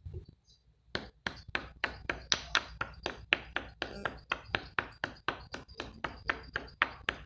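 A kitchen utensil striking a bowl in a steady rhythm of sharp clinking taps, about four a second, starting about a second in, as when beating cake batter by hand.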